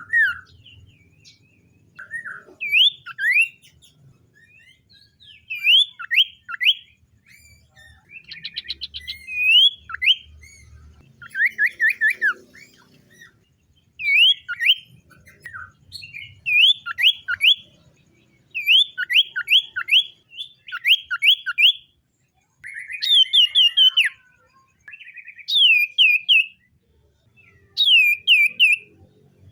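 Common iora singing: short phrases of two to four quick whistled notes, each note sweeping steeply up and dropping, repeated every second or two.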